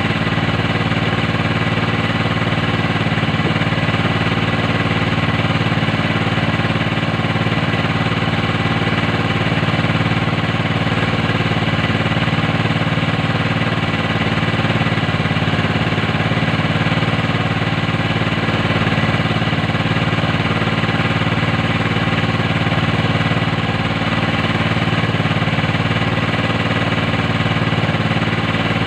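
A small engine aboard an outrigger fishing boat running steadily at an even speed, its pitch and level unchanging.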